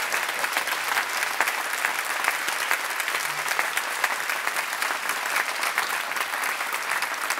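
Banquet audience applauding steadily, a dense patter of many hands clapping at the end of a speech.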